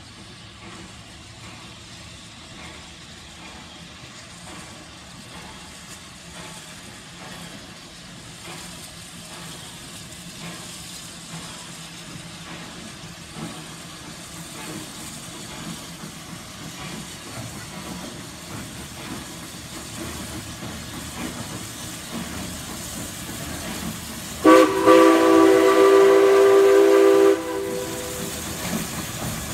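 Steam locomotive approaching, its running sound growing steadily louder, then one long blast of its steam whistle, about three seconds, near the end, the loudest sound here.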